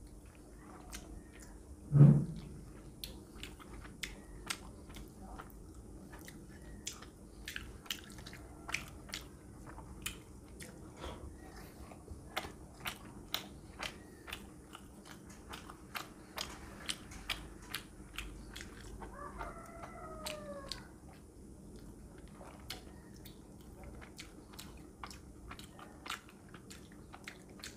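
Close-up mouth sounds of eating rice and fish curry by hand: wet chewing and lip smacks as a steady run of soft clicks. One loud low thump comes about two seconds in, and a short animal call about a second long sounds about twenty seconds in.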